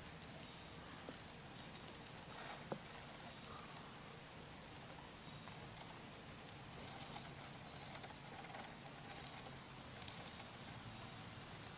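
Faint steady outdoor hiss, with one sharp click about three seconds in and a few lighter ticks.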